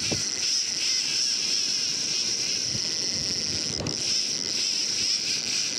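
Penn fishing reel working steadily against a hooked fish on a bent surf rod, a continuous high whir over the wash of surf and wind on the microphone.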